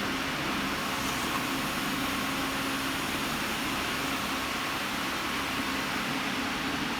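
Cheese container lid-closing machine running with a steady mechanical hum and hiss.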